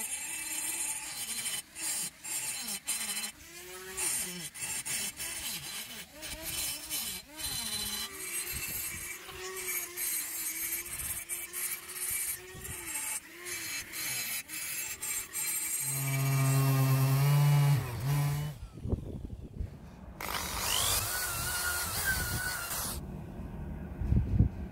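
Scraping and clicking as a small hand tool works at the edge of a cast-iron grinder part. Later comes a steady motor hum, and then a cordless drill whirs with a wavering pitch as it spins a felt polishing bob inside the cast-iron bearing bore.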